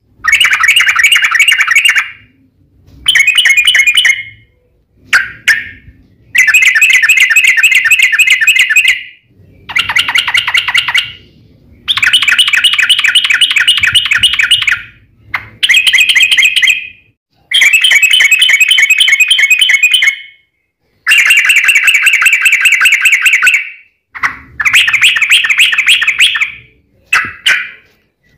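Yellow-vented bulbul (trucukan) singing loudly in rapid, chattering phrases. There are about a dozen of them, each one to three seconds long, separated by short pauses.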